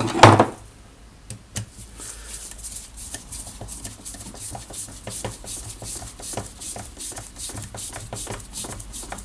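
Torx screwdriver tightening the rear screw into the plastic housing of a Bosch GWS 1400 angle grinder: a steady run of light clicks, several a second.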